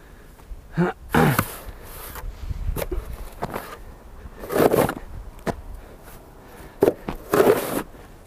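Snow shovel scraping and pushing through snow in repeated short strokes, the loudest about a second in, around four and a half seconds in, and near the end.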